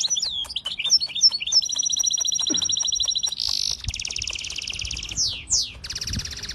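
A songbird singing a varied song of rapid trills, clear whistled notes and quick downward-sliding notes.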